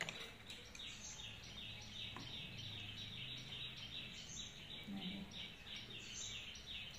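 A small bird chirping rapidly and evenly, about five short high chirps a second, faint.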